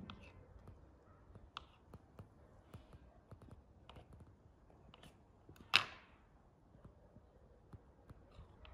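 Faint scattered clicks and light taps, with one sharp, much louder click about two-thirds of the way through.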